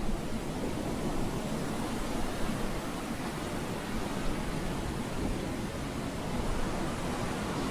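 Steady rushing noise, heaviest in the low range, with no shofar blast.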